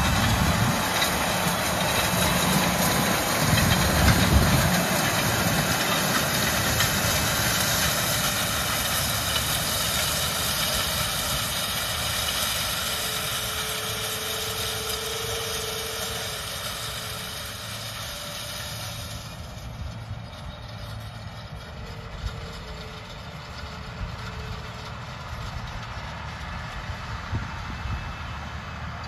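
John Deere tractor engine running steadily with heavy mechanical noise. About two-thirds of the way through it becomes quieter and duller.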